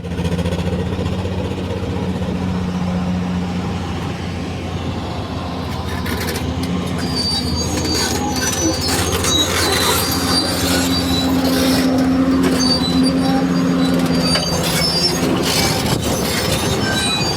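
Diesel engine of a Hyundai R480LC excavator running steadily with an injector fault and a misfire. Short high-pitched squeaks and clicks come in over the engine from about six seconds in.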